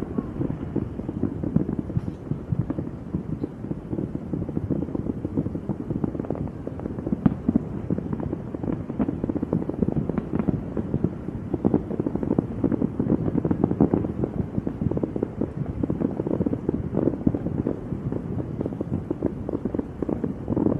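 Fireworks going off in a dense, continuous crackle of many quick pops.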